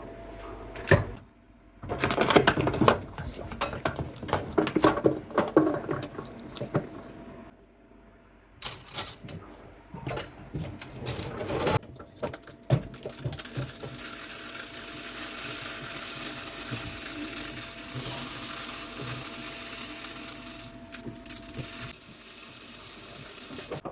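Plastic and metal handling clatter at the dishwasher, then a steady hiss lasting about ten seconds as dishwasher salt is poured into the salt reservoir.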